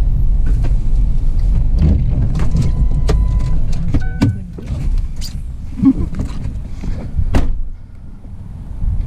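Van driving, with a low road rumble and scattered clicks and knocks. The rumble drops away about halfway through, as if the van slows to a stop. A sharp knock comes at the very end.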